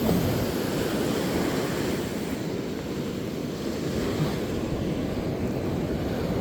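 Ocean surf washing steadily at the shore, with wind rumbling on the microphone.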